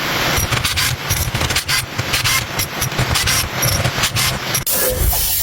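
Irregular scraping and clicking of hands and tools working on a diesel engine block, changing near the end to a steady hiss.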